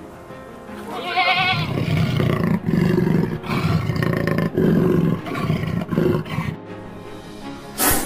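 Big cat growling and roaring in a run of loud, throaty bursts over background music, preceded about a second in by a short wavering goat bleat. A brief hissing burst comes near the end.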